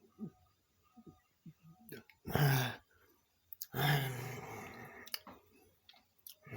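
A man gulping Buckley's cough syrup, with small clicks of the throat as he swallows, then a short harsh breath out about two seconds in and a long groaning exhale a little later that fades away. The groan is a reaction to the medicine's foul taste.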